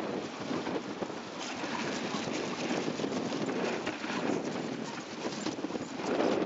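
Dog sled running over snow: a steady, crackling hiss from the runners scraping and crunching across the snow surface, with wind buffeting the microphone.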